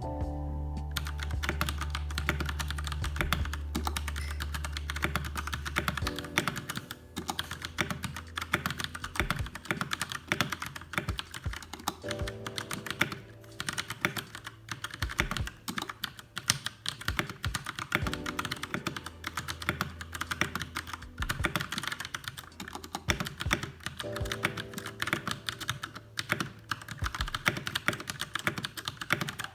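Fast, continuous typing on a Royal Kludge RK61 mechanical keyboard with brown tactile switches: a dense stream of keystrokes, with background music underneath.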